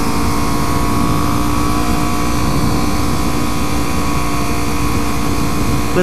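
Kawasaki Ninja 300's parallel-twin engine running at a steady cruise, heard from the rider's position with wind rushing over the microphone.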